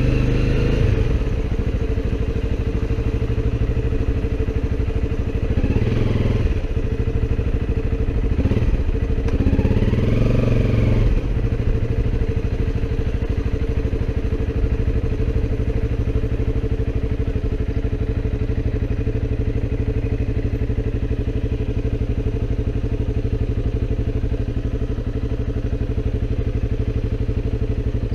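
Motorcycle engine running steadily while riding, its revs rising briefly near the start, about six seconds in, and again about nine to eleven seconds in.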